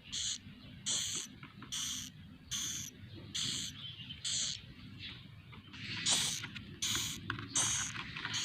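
Swiftlet nestlings giving harsh, hissing rasps, about one call a second, the louder ones coming past the middle.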